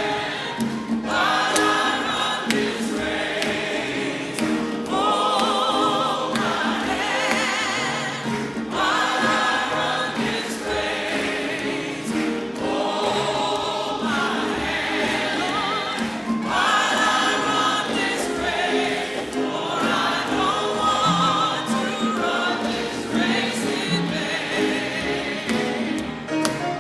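Choir singing a hymn with accompaniment, in sustained phrases with vibrato.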